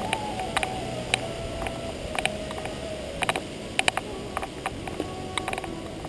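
Bicycle riding over loose gravel and rock: a steady rolling crunch from the tyres, with the bike rattling in many sharp clicks and a few thin squeals that waver in pitch.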